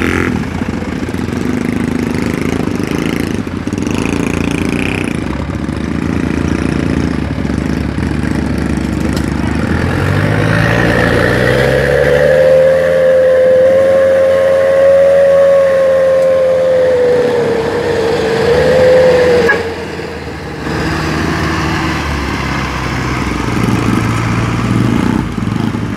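Diesel engine of a Mitsubishi Fuso light truck stuck in deep mud, running under heavy load. About ten seconds in it revs up hard and holds at high revs for several seconds, then drops back sharply, with a lower engine hum before and after.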